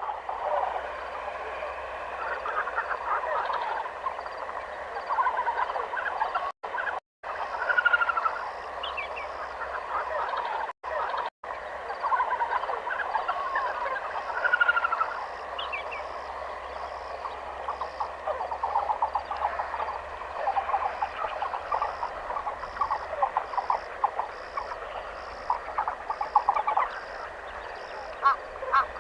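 Dense forest chorus of many overlapping animal calls, with a high note repeating at a regular pace above it. The whole sound cuts out briefly twice, about a third of the way in.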